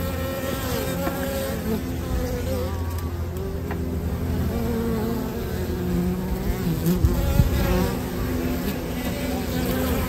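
Honeybees buzzing at a hive entrance: a steady low hum with the wavering, gliding pitches of individual bees flying in and out close by, briefly louder about seven seconds in.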